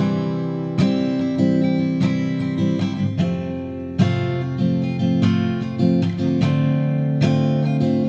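Background music: acoustic guitar strumming and picking.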